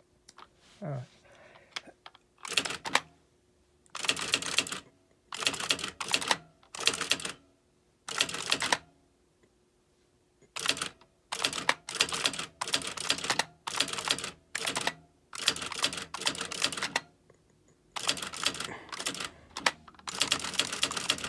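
Electronic typewriter typing in short bursts of rapid strikes, each burst up to about a second long, with brief pauses between.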